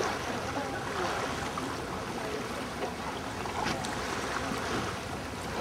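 Steady rush of wind and choppy open water heard from aboard a sailing barge under way.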